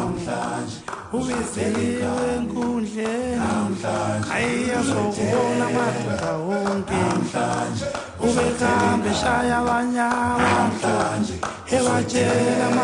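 Background music with singing voices, a male voice among them, sung in a choral, largely unaccompanied style.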